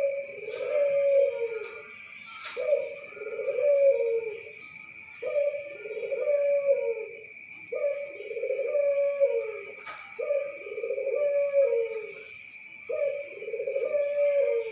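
Puter dove (ringed turtle dove) cooing: six long, low coos repeated about every two and a half seconds, over a steady high-pitched whine in the background.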